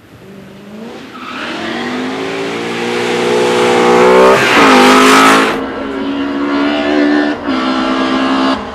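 Race car engine accelerating hard, its revs climbing steadily and dropping at a gear change about four seconds in, then another brief dip near the end. It grows louder as it approaches, is loudest around the middle, then turns duller as it passes.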